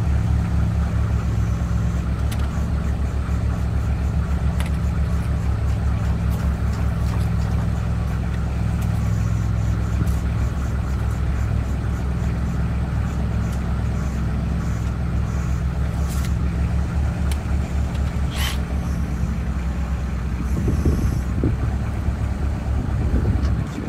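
Engine running steadily at one low speed, with a couple of short sharp clicks in the later part. It drops away just before the end.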